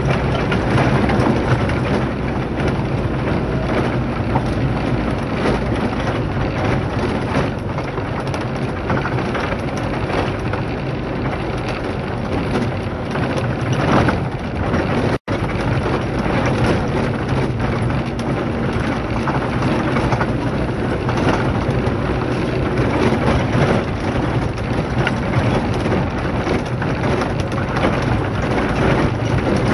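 A vehicle driving on a rough dirt and gravel track, heard from inside the cabin: a steady engine and road noise with constant crunching and rattling from the tyres on the loose surface. The sound drops out for an instant about halfway through.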